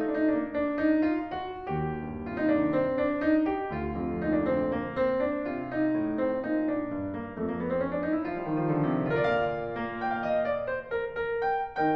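Classical background music played on piano: a steady flow of notes, with a quick rising run of notes a little after the middle.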